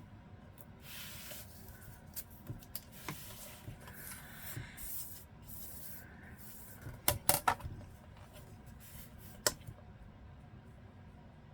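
Paper being handled on a work table: a few soft swishes of paper or a ruler sliding, then a quick run of four sharp clicks about seven seconds in and a single click later on.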